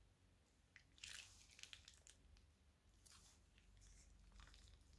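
Faint squishing and crinkling as thick slime is squeezed out of a plastic piping bag, in a few short crackly bursts.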